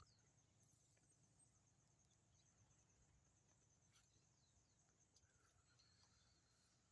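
Near silence outdoors, with a faint, high, evenly pulsing trill of insects and a few faint chirps.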